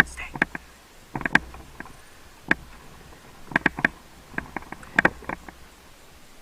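Sharp clicks and knocks in short irregular clusters, several in quick succession about a second in, a single one midway, and more groups in the second half.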